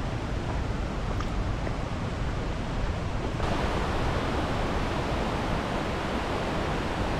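Steady outdoor rushing noise that turns brighter and hissier about three and a half seconds in.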